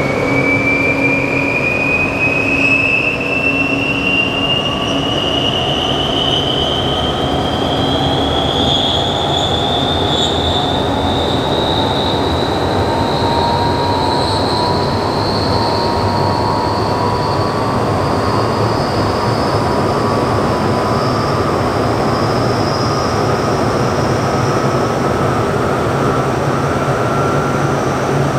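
A 3000 kW six-pole slip-ring induction motor running up to speed under a soft start. Loud, steady rushing noise carries several whines that climb slowly and evenly in pitch as the rotor accelerates toward its 993 rpm maximum; the highest whine is the strongest.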